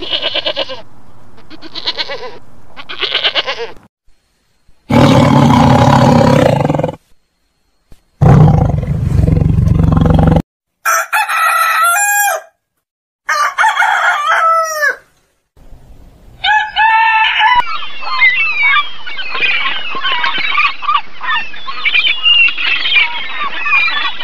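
A run of animal calls. It opens with a young goat bleating a few short times, then two loud, rough sounds of about two seconds each. A rooster then crows three times in quick succession, and dense songbird chirping follows from about two-thirds of the way in.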